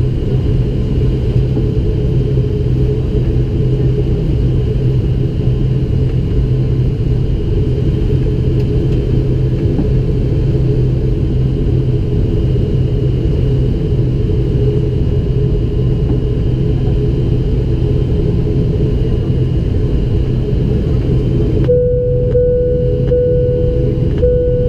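An ATR 72-500's Pratt & Whitney PW127 turboprop engines and propellers running, heard inside the cabin as a steady drone with a deep hum. Near the end a mid-pitched tone with short gaps in it joins the drone.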